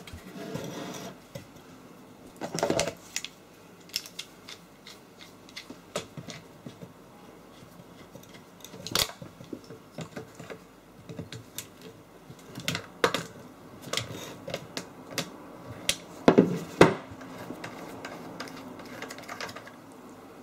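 Hand tools and metal parts clicking and clinking while an old electric water pump is taken apart by hand: irregular light clicks with a few louder knocks, the loudest about three quarters of the way through.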